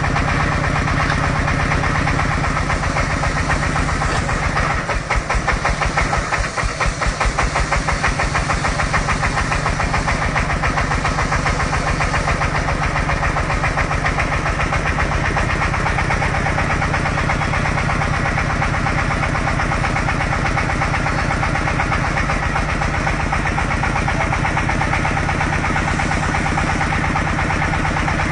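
Engine of an industrial drilling machine running steadily with a fast, even chugging beat; for a few seconds about five seconds in, the beat turns heavier and more uneven.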